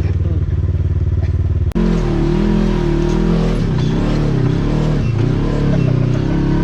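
Polaris RZR XP1000's twin-cylinder engine running steadily at low revs with a fast, even pulse. After a sudden break about two seconds in, the engine is heard under way, its pitch rising and falling as the throttle changes.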